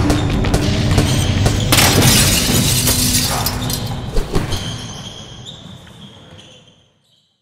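Animated logo sting: a basketball bouncing several times on a hardwood court over low music, then a crash about two seconds in, all dying away over the last few seconds.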